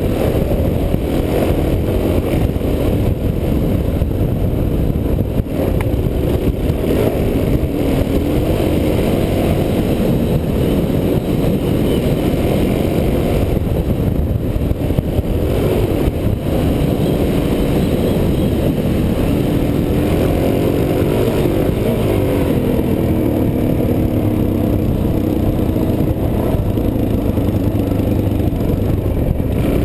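Suzuki DR-Z400S single-cylinder four-stroke engine running under load on a dirt trail, its revs rising and falling with the throttle, heard from a helmet-mounted camera.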